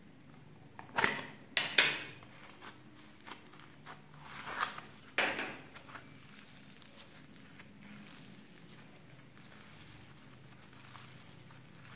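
A plastic slime tub is handled and opened, giving several loud crinkling snaps in the first half. After that comes quieter crackling as orange foam-bead floam is squeezed and stretched by hand.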